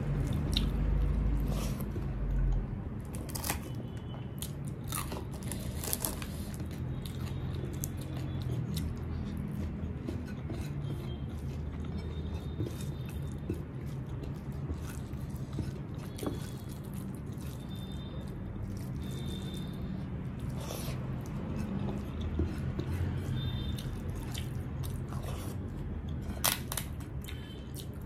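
Fingers mixing cooked rice with dal on a plate, giving wet squishing and scattered sticky clicks, with close-miked eating mouth sounds.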